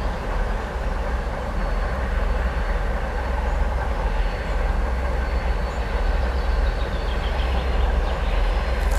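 2M62U twin-section diesel locomotive approaching under power with a train of hopper wagons, its two-stroke V12 diesel engines running in a steady low rumble.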